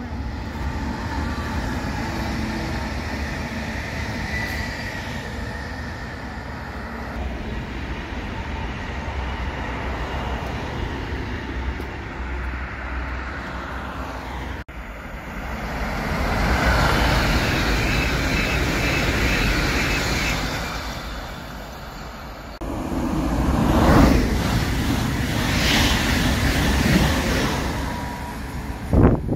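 Road traffic with an electric regional train passing at a distance, then a PKP Intercity electric train rushing past close at speed. The train noise is loudest in the second half.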